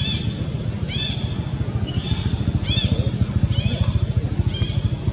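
A bird calls over and over, about once a second, each call a short note that rises and falls. Under it runs a steady low engine rumble.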